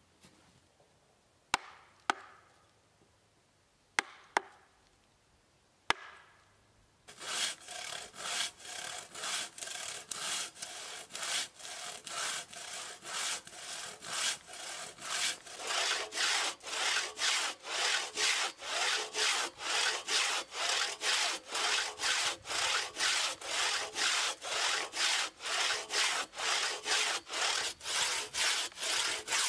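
Hand crosscut saw cutting through a shortleaf pine log on a sawbuck, in even back-and-forth strokes a little over two a second. The strokes start about seven seconds in and grow louder as the cut deepens. Before the sawing, a few separate sharp knocks.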